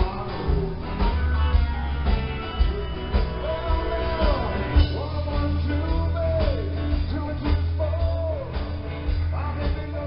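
A live rock band playing: electric guitar and drums with a steady beat over a heavy bass line.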